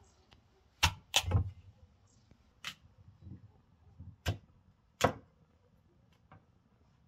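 Meat cleaver chopping through pumpkin and knocking onto a wooden log chopping block: about six sharp chops at irregular intervals, the last one fainter.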